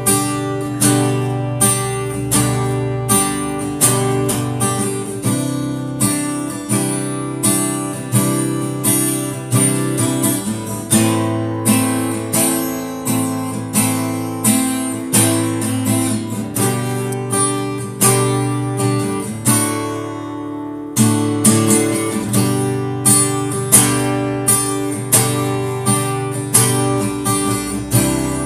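Yamaha FS100C steel-string acoustic guitar strummed in a steady rhythm through a chord progression, with a brief let-up about twenty seconds in.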